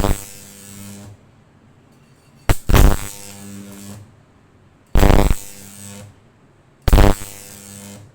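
Microwave oven transformers in series fired in short bursts: each time a loud buzzing high-voltage arc for about half a second, then about a second of transformer hum before it cuts off. This happens four times, about every two seconds.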